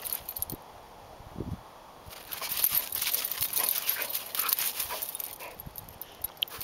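German shorthaired pointer puppy giving one short whine about a second and a half in, then its paws scuffling and crunching in snow as it pounces and play-bows.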